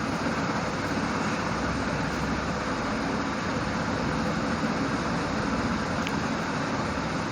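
Steady background noise, a constant rushing hum with no distinct events.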